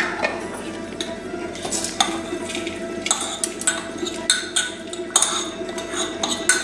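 Clinks, knocks and scraping of a bowl against a mixer-grinder jar as roasted dal and grated coconut are tipped in, busier from about halfway through.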